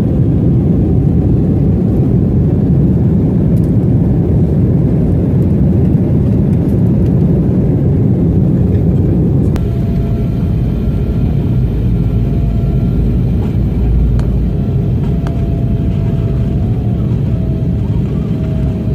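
Jet airliner cabin noise in flight: a steady, deep rush of engine and airflow noise heard inside the cabin. About ten seconds in the sound shifts slightly and a faint steady whine joins it.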